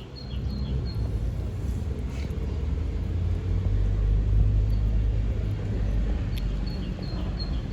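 A motor vehicle's engine rumbling low, swelling to its loudest about halfway through and staying fairly loud.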